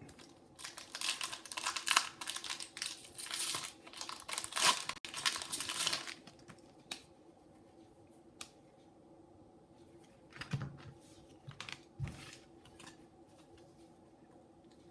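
Foil booster pack wrapper crinkling and tearing open for about six seconds, then a few faint clicks.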